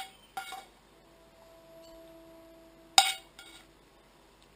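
A metal utensil clinking against a nonstick frying pan as fried onion is scooped out: a light clink about half a second in and a sharp, louder clink about three seconds in.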